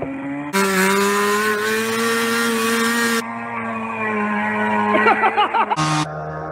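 Yamaha snowmobile engine in a go-kart running hard at high revs while the kart spins donuts on grass. The note holds fairly steady, with abrupt changes in tone a few times. About five seconds in comes a short burst of quickly rising and falling revs.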